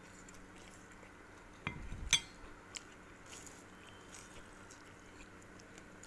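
Utensil clinking against a plate: a knock about one and a half seconds in and a sharper clink just after, then a few faint ticks, over a quiet steady hum.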